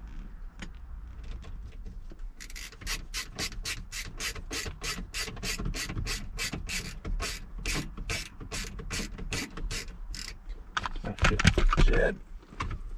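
Hand ratchet wrench clicking steadily, about four clicks a second, as bolts on a steering column are tightened. Near the end comes a louder, noisier scrape of tools or parts being handled.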